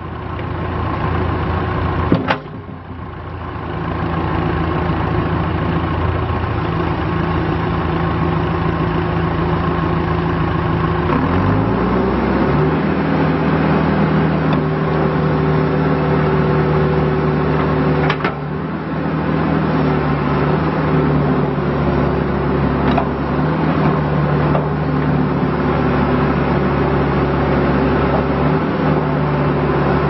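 John Deere 310SE backhoe loader's diesel engine running steadily while the backhoe boom and bucket are worked. About a third of the way through it revs up and holds the higher speed. A few sharp metallic knocks sound over it.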